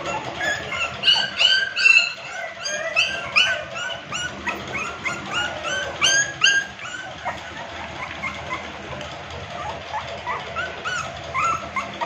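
Young American Pit Bull Terrier puppies whining and yipping: a quick run of short, high-pitched cries, coming thick and fast in the first half and more scattered later.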